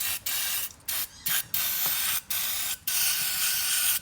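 Aerosol can of carburettor cleaner spraying up into the underside of a lawn mower carburettor in a string of short hissing bursts, the later ones held longer. The cleaner is flushing out dirty, cruddy fuel residue.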